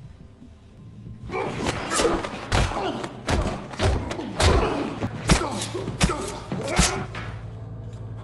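A fist-fight: from about a second in, a rapid run of about a dozen heavy thuds and slams as punches land and bodies hit hard surfaces, with grunts between the blows.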